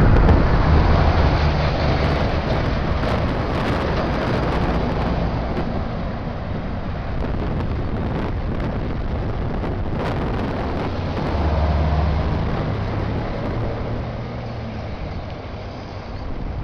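Heavy diesel engines and tyres of wheeled armoured personnel carriers and military trucks driving past, loudest at the start with another vehicle passing near the middle, then fading. Wind buffets the microphone.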